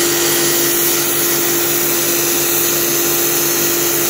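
Gas cutting torch blowing a steady, loud hiss as its cutting jet burns through a thick steel plate, with a steady tone running underneath.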